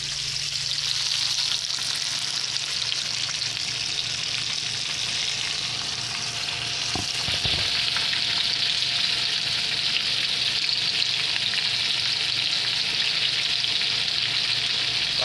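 Breaded chicken strips frying in a skillet of hot oil: a steady sizzle. A couple of dull knocks come about seven seconds in.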